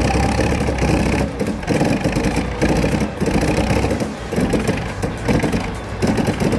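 A heavy machine's engine running, its loudness rising and falling repeatedly as it works.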